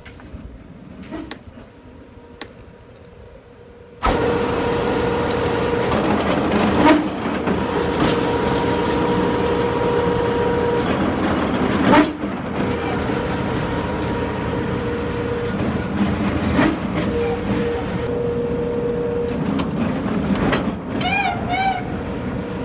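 A piling machine's motor starts suddenly about four seconds in and runs steadily with a humming tone, with a couple of sharp knocks. Near the end a few short rising-and-falling chirps sound over it.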